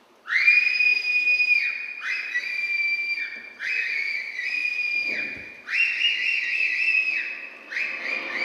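A run of about five high whistle-like tones, each sliding up quickly, held for about a second, then dropping away; at times two close pitches sound together.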